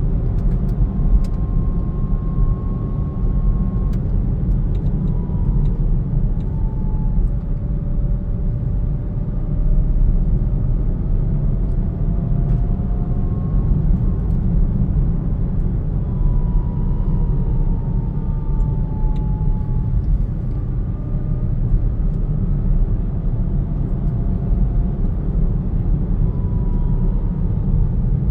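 Hyundai Kona (model year 20.5) on the move: a steady low rumble with faint whining tones that drift slowly up and down in pitch, recorded by its owner as a strange, unexplained sound from the car.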